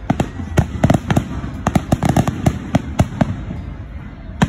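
Aerial fireworks popping and crackling in a quick, irregular string of sharp pops, several a second, as glittering stars burst overhead.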